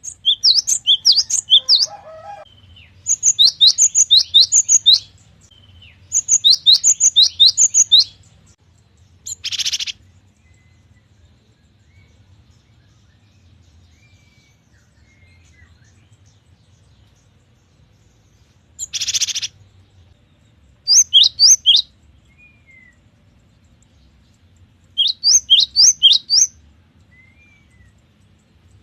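Cinereous tit (gelatik batu) singing: five bursts of rapid repeated high whistled notes, each about two seconds long, with a long pause midway. Two short harsh, rasping calls come in between the bursts.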